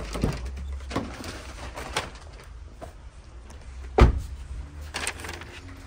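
Knocks and paper rustling from bags being loaded into a car, with a single heavy thump about four seconds in, over a low steady hum.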